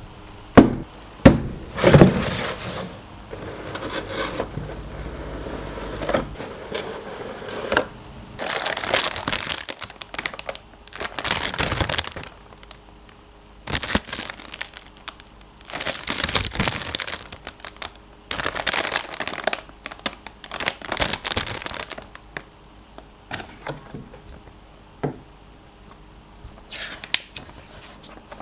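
Plastic model kit packaging being handled in an unboxing: the cardboard box and plastic-bagged parts runners crinkling in irregular bursts, with a few sharp clicks near the start.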